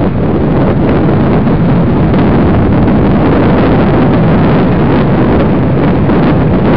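Inline skate wheels rolling fast over an asphalt path, mixed with wind buffeting the microphone; the noise gets louder about half a second in and then holds steady.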